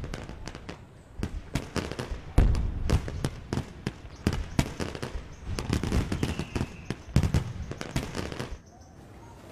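Firecrackers going off in the air in a rapid, irregular string of sharp bangs, which stop abruptly about eight and a half seconds in.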